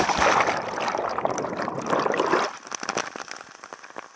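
A plunge into the pool at the foot of a waterfall: a sudden loud splash, then about two and a half seconds of churning, bubbling water heard from under the surface, fading into dripping and the rush of the falls near the end as it comes back up.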